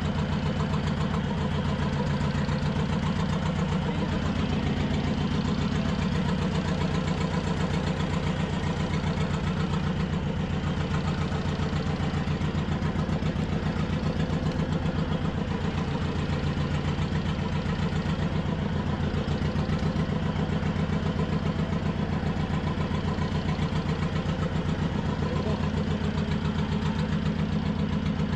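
Fishing boat's engine idling steadily with a fast, even chugging.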